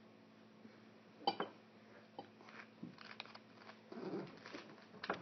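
A dog chewing and crunching food in irregular bursts, with a sharp click about a second in and another near the end.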